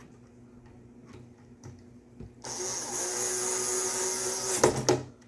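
Power drill running steadily for about two seconds as it drives screws out of a speaker box, followed by two sharp knocks.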